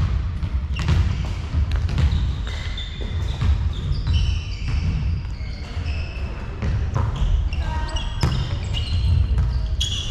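Volleyball play on a hardwood sports-hall floor: repeated sharp ball hits and ball bounces ringing in the hall, with brief high squeaks around the middle and near the end, over a steady low hall rumble.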